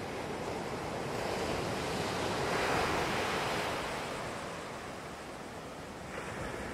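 Ocean surf: waves breaking and washing in a steady rush that swells to its loudest about three seconds in.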